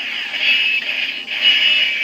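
Japanese Gokai Saber toy sword playing its electronic sound effects and music: the initial attack sound, set off by an inserted Ranger Key.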